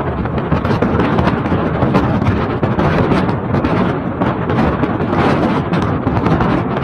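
Wind buffeting the microphone at a moving vehicle's side window: a loud, continuous rumble with irregular gusts, over the hiss of tyres on a wet, broken road surface.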